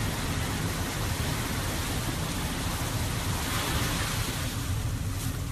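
Ocean surf washing around an SUV stuck in the shallows, with a wave breaking and splashing over the front of the vehicle about three and a half seconds in, over a steady low rumble.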